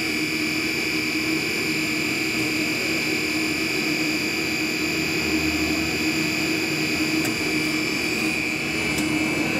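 TON KEY V-TY-50M two-nozzle PP straw extruding machine running: a steady mechanical hum with a constant high tone and a lower tone.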